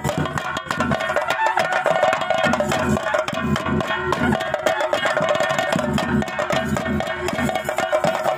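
Chenda drums playing a fast, dense rhythm for a Theyyam dance, with heavy low beats underneath and a steady ringing tone above.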